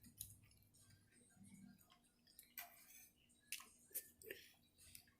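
Faint chewing and mouth sounds of someone eating shrimp curry, with a few soft clicks and smacks in the second half.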